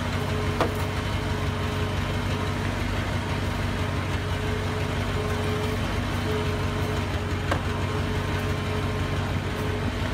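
1989 Ford E-350 van's engine idling with a steady, even hum, with two faint clicks about seven seconds apart.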